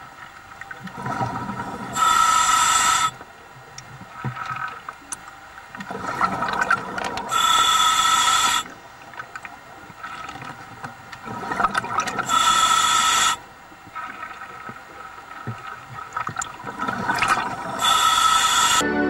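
Scuba diver breathing through a regulator underwater: four loud bursts of exhaled bubbles, about five seconds apart, with quieter bubbling and inhalation between them.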